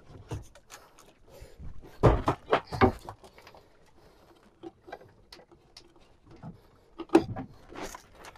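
Irregular knocks and thumps on a fishing boat's hull and deck as a big yellowfin tuna is handled at the side, the heaviest about two seconds in and again around seven seconds in.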